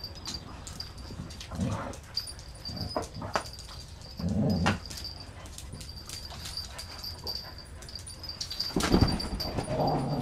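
Dogs playing rough, a Rhodesian Ridgeback with a smaller dog: short low growls and grunts, the loudest about four and a half seconds in and another run near the end, over scuffling and clicks of paws on the sofa and tiled floor.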